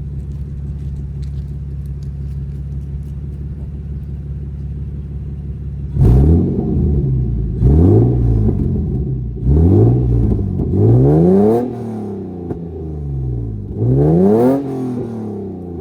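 Lexus car engine idling steadily, then, about six seconds in, revved in five quick throttle blips, each rising in pitch and dropping back to idle. The engine is warmed up and its exhaust is newly sealed at the headers and Y-pipe, with the exhaust leak fixed.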